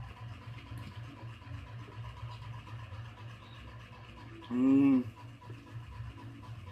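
Close-up chewing of a mouthful of boiled egg, a steady wet munching. About halfway through, the eater gives a short, loud hummed "mmm" that rises and falls in pitch.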